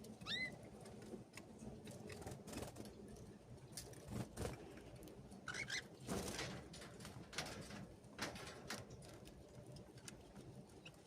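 Canaries in an aviary giving a couple of short, upward-sliding chirps, one near the start and one about halfway through. Between them come scattered light clicks and soft rustling from the birds moving and feeding.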